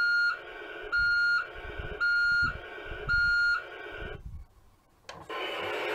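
Motor Island Recycling toy garbage truck's electronic sound effect: a high, pitched reversing-alarm beep repeating about once a second, four times, with a rough noise between the beeps. It stops about four seconds in, and after a click a new steady, noisy sound effect starts near the end.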